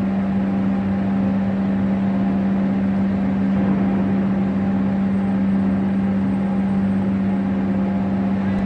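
A heavy diesel engine running steadily at constant speed, giving a loud, even hum with one strong low tone.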